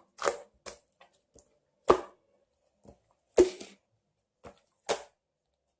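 A handful of short, sharp taps or clicks at irregular intervals, about six in all, the loudest about two and three and a half seconds in.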